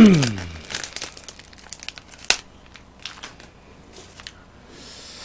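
Close-miked eating sounds: chewing and small clicks and crinkles of chopsticks and dishes. It opens with one sharp sound that drops in pitch over about half a second, and there is a single sharper click about two seconds in.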